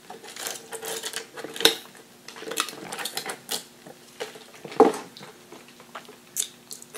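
Sipping through a straw from a paper fast-food cup, with small clicks and rustles from the cup and lid. The cup is set down on the table with a knock about five seconds in.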